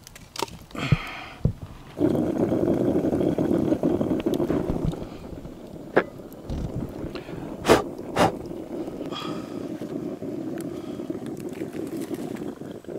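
Coffee pot boiling over a campfire: a steady rumble that starts suddenly about two seconds in and eases after five, with a few sharp clicks.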